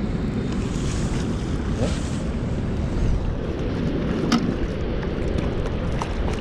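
Steady wind rumbling on the microphone over the rush of river water, with a couple of short clicks in the second half.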